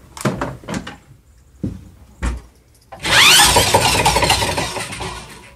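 A few knocks of handling, then about three seconds in an electric drill turning the trotline line-puller wheel whirs up with a rising whine, runs for about two seconds and fades out.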